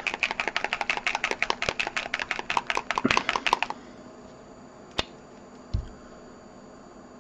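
Small bottle of acrylic model paint shaken hard by hand, rattling in rapid clicks for about three and a half seconds to mix the paint. Then two single light knocks.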